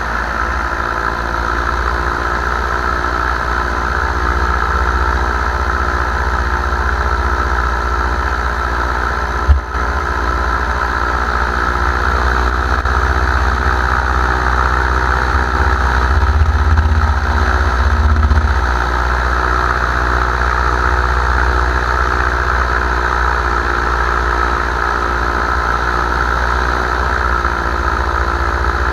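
Paramotor engine and propeller running steadily in flight, with a low rumble beneath. A single sharp knock about ten seconds in.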